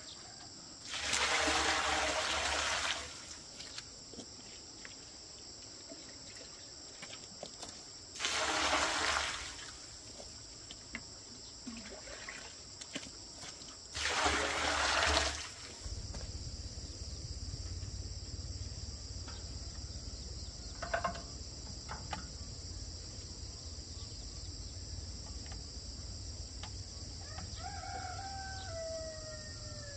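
A rooster crowing three times, each crow about two seconds long and several seconds apart, over a steady high drone of insects. Near the end comes a fainter, shorter call that falls in pitch.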